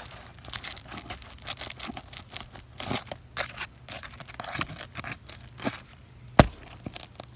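Asphalt 3-tab shingles being worked loose by hand and tool: irregular scraping, tearing and crinkling with scattered clicks, and one sharp knock a little over six seconds in.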